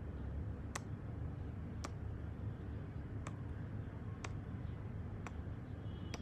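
A series of quick kisses on a sleeping kitten, six short lip smacks about a second apart, over a steady low hum.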